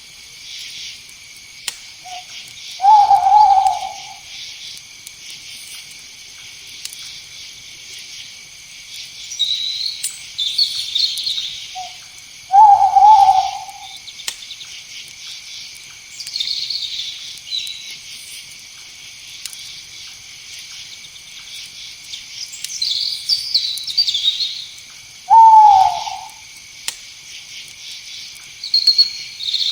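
An owl hooting three times, about ten seconds apart, each hoot about a second long with a faint short note just before it. Underneath runs a steady high-pitched insect chorus, like crickets, with scattered higher chirping calls.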